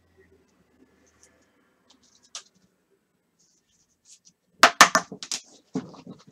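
Sports cards and their packaging handled on a table: a single click about two seconds in, then a quick run of loud, sharp crackles and taps near the end.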